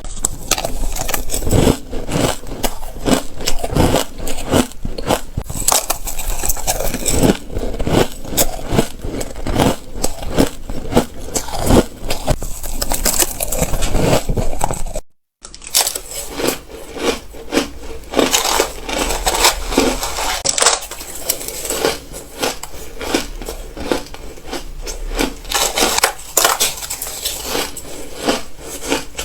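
Ice being bitten and crunched between the teeth: many sharp, crackling crunches in quick succession, close to the microphone, with a brief silent break about halfway through.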